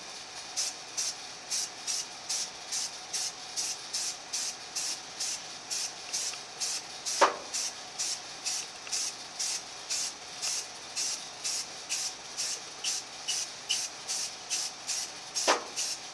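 Rust-Oleum Camouflage 2X spray paint can hissing in short, evenly spaced puffs, about two a second. Two sharp clicks, the loudest sounds, come about seven seconds in and near the end.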